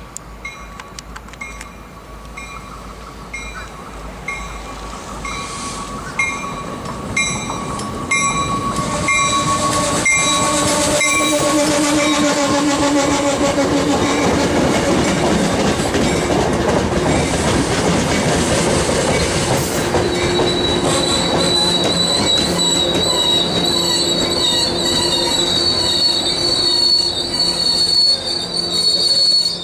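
A train running through the station, growing loud about eight seconds in, its wheels squealing on the rails from about twenty seconds on. A bell rings at an even beat during the first twelve seconds.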